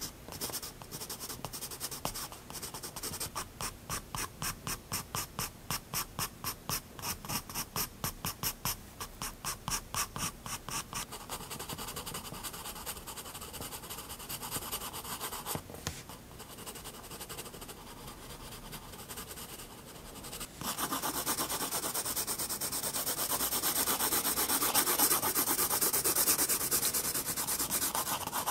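Prismacolor Turquoise 7B graphite pencil scratching on sketchbook paper. For the first ten seconds or so it makes quick short strokes, about four a second, then fainter strokes. From about twenty seconds in, a steady, louder rubbing scratch takes over.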